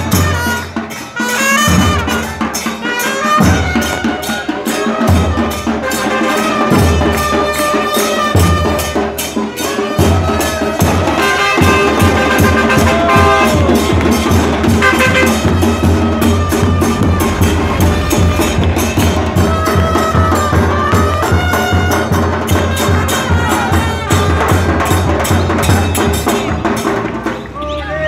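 A street band of supporters playing bass drums (bombos) and other percussion, with brass horns carrying a tune. Slow, heavy drum beats about every second and a half switch about ten seconds in to a fast, dense beat.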